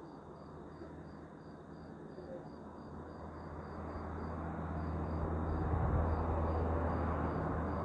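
Car driving on an open road: engine hum and road noise that grow louder about halfway through as it picks up speed, with a faint high chirp repeating about three times a second.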